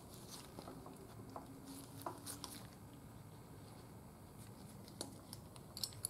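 Faint, scattered clicks and scuffs of a high-pressure fuel pump being handled and pushed into its mounting bore on the engine's cylinder head, metal parts touching under gloved hands, with a small cluster of clicks near the end.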